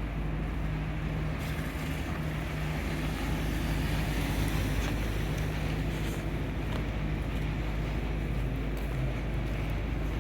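Steady low engine hum with the even rumble of city street noise around it, and a few faint clicks.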